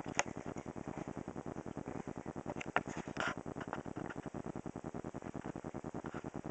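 Video camera's autofocus motor running in a rapid, even pulse as it hunts for focus at close range. A few sharp clicks sound over it, one just after the start and two around the middle.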